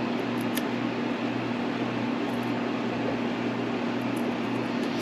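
Steady fan-like room noise: an even hiss over a low, constant hum. A few faint, light clicks sound about half a second in and again near the end.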